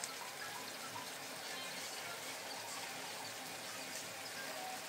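Steady sizzle of shredded chicken frying in a wok.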